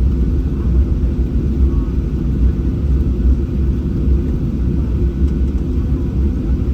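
Steady low rumble inside the cabin of a Boeing 737-800 on the ground before takeoff, its CFM56 engines running at low power.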